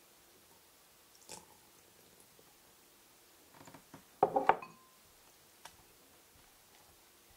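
Silicone spatula stirring wet cocoa batter in a glass bowl: soft scrapes, then a short loud burst of squelching with a light clink against the glass about four seconds in.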